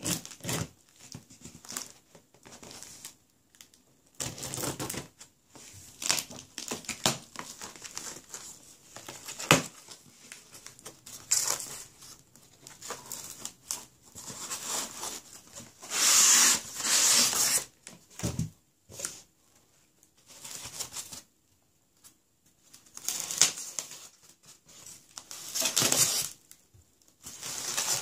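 Packaging torn open and wrapping crinkled by hand during an unboxing: irregular bursts of tearing and crinkling, with scattered sharp clicks and knocks.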